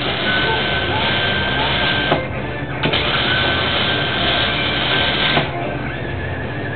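Electric arc welder crackling and sizzling as it lays a bead on steel, in two runs: about two seconds, a short break, then about two and a half seconds more, stopping about five and a half seconds in.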